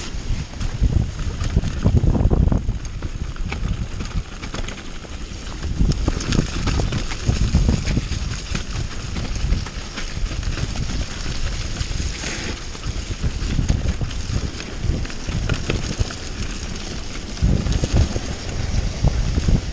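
Mountain bike descending a rocky dirt trail: tyres rumbling over gravel and the bike rattling over bumps, with wind buffeting the microphone in uneven surges.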